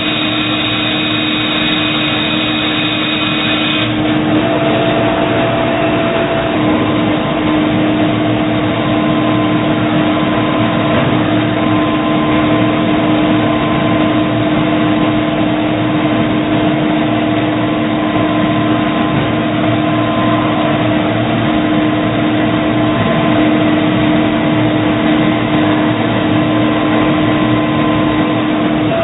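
Doosan Puma ST20G CNC lathe running: a steady machine hum with several steady whining tones. Some high-pitched tones stop about four seconds in.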